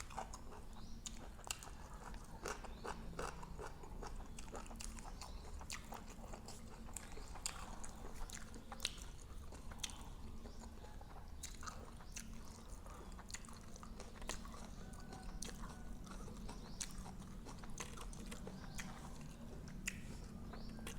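A person chewing mouthfuls of nam tok, spicy grilled pork-neck salad, with many small, irregular clicks and crunches.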